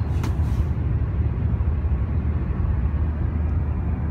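Steady road and engine rumble inside a car cruising at highway speed. A brief hiss near the start.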